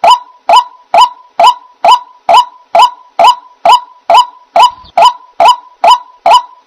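White-breasted waterhen calling, the same short harsh note repeated evenly about twice a second without a break.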